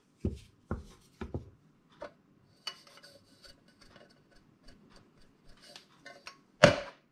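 Wooden spatula stirring thick tomato sauce in a frying pan, knocking and scraping against the pan several times, with faint ticking and rubbing in between and one louder knock near the end.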